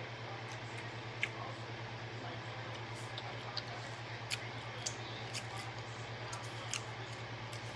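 Close-up eating sounds: wet mouth clicks and smacks while chewing seafood, a few sharp ones standing out, over a steady low hum.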